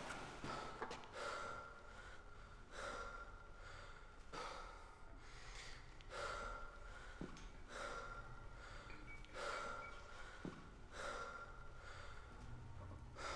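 A person breathing heavily and steadily, a loud breath about every second and a half, each with a slight whistling tone, over a low steady hum.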